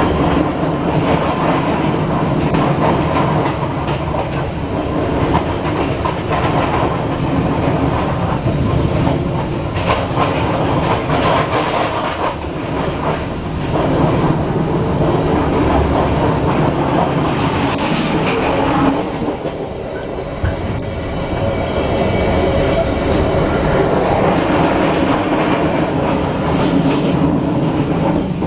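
Passenger train running along the track, heard from inside the carriage: a steady rumble of wheels on rail with clickety-clack over the rail joints. It dips briefly about two-thirds of the way through.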